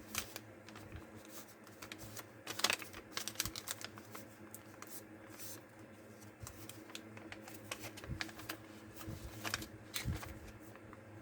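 Paper being handled and folded: irregular crisp crackles and taps, busiest about two and a half seconds in and again near ten seconds, over a low steady hum.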